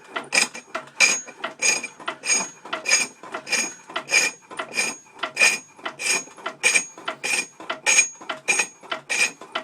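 Hickory being cut on a treadle-driven spring pole lathe: a tool scraping the spinning wood in a steady rhythm of about one and a half strokes a second, each stroke cutting as the work spins one way and going quiet as it spins back.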